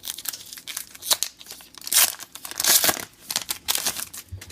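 Plastic trading card pack wrapper being torn open and crinkled by hand, in a series of rustles and sharp crackles, loudest about two and three seconds in.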